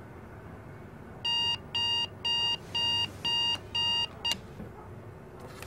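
Digital alarm clock beeping: a high electronic beep about twice a second, starting about a second in, with the last beep cut short as a hand switches the alarm off.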